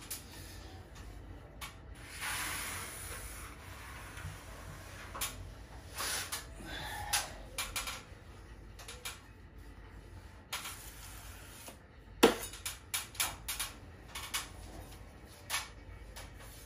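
Drywall skimming blade being worked with joint compound: a couple of stretches of scraping hiss, the first about two seconds in, among scattered clicks and knocks of the blade and tools. One sharp knock a little past the middle is the loudest.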